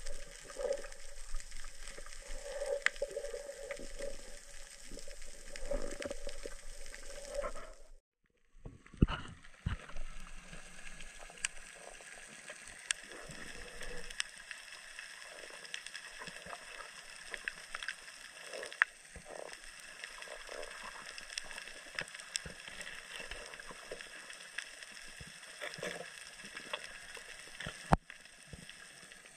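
Underwater ambience picked up by a diver's camera: a steady hiss full of faint scattered clicks and crackles, with water gurgling. The sound drops out completely for a moment about eight seconds in.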